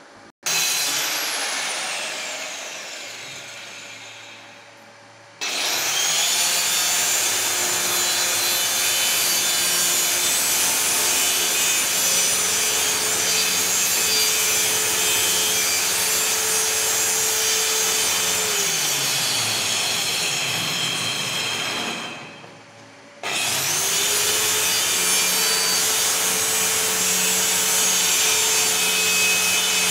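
Handheld electric cutter with a small circular blade slicing through a white polystyrene (PS) sheet, the motor whining steadily under the cut. A burst near the start fades away. The motor starts again about five seconds in, winds down with falling pitch around twenty seconds, then spins up again about twenty-three seconds in and cuts on.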